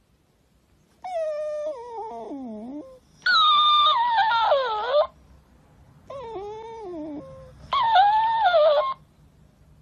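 A dog whining and howling in four long wavering cries, each sliding down in pitch; the second and fourth are the loudest.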